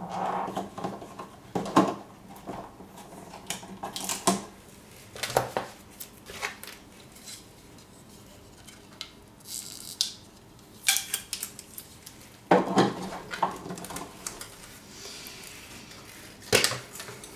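White plastic parts of a Click and Grow Smart Garden 9 clicking and knocking as they are handled and fitted together: irregular sharp clicks and clatters, several of them louder knocks.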